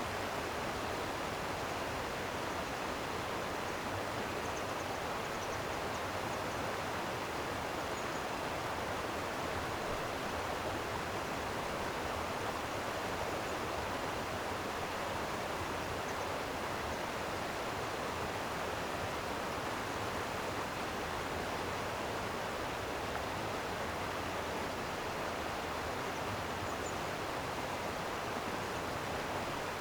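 Stream water flowing steadily, an even rushing sound without breaks.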